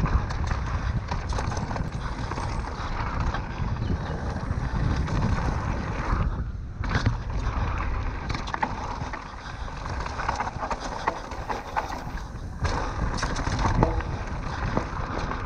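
Electric mountain bike rolling fast down a dirt and gravel trail: knobbly tyres crunching over the ground with frequent clicks and rattles from the bike and loose stones, over a low rumble of wind on the camera microphone. The noise eases briefly twice.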